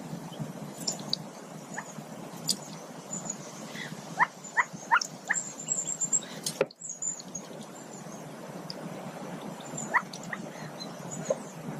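Mallard ducklings peeping from under the hen on the nest: a quick run of four or five short rising peeps about four seconds in, and a few more near the end. Under them runs a steady hiss with a few faint clicks.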